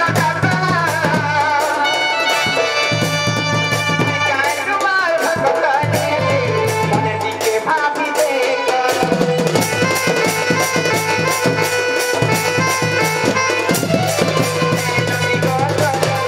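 Sambalpuri folk song performed live: a singer's amplified voice over a steady dhol barrel-drum beat and a sustained melody instrument.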